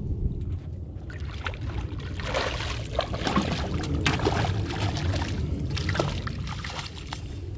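A hooked red drum (spot tail bass) thrashing and splashing at the surface beside a small boat as it is netted: a run of sharp, irregular splashes from about two seconds in, over a steady low rumble.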